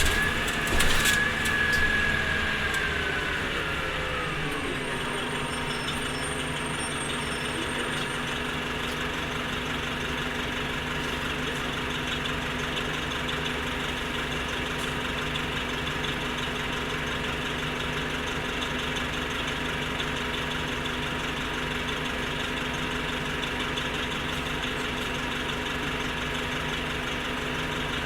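Orion V transit bus's diesel drivetrain whine falling in pitch over the first few seconds as the bus slows, with a few sharp clicks near the start. The engine then idles steadily with an even hum.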